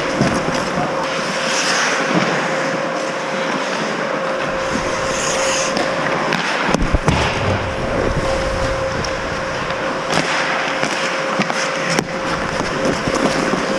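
Ice hockey skates scraping and gliding on rink ice, with a few sharp clacks scattered through and a steady hum underneath.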